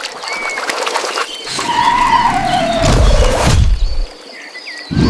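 A motor-vehicle sound effect: an engine-like tone sliding down in pitch with a heavy rumble, after about a second and a half of clicking and scratching.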